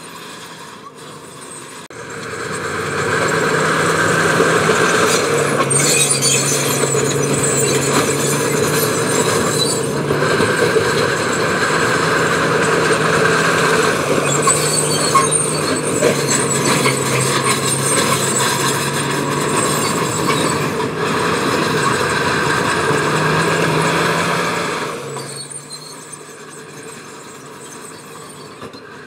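Heavy diesel engine of construction equipment working under load, with a gritty rattling noise over it. It swells up about two seconds in, stays loud for over twenty seconds, then drops back to a low rumble near the end.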